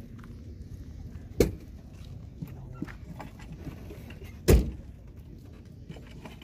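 Two heavy thuds about three seconds apart, over a low steady rumble.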